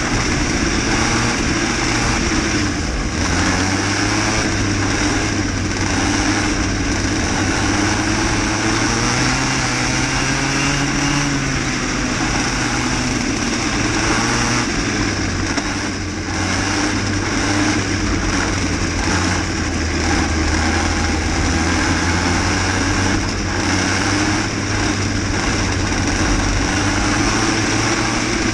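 Onboard sound of a cadet racing kart's small engine at race speed, its pitch rising and falling as it accelerates and lifts off through the corners.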